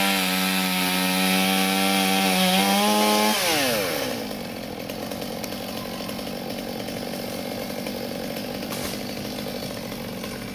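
Chainsaw revved to full throttle, holding a high steady pitch that sags slightly once, then dropping back to idle about four seconds in and idling quietly for the rest.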